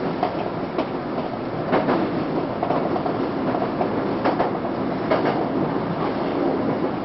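Tokyu 8090 series electric train running on the rails, heard from the cab, with wheels clacking over rail joints a few times at uneven intervals.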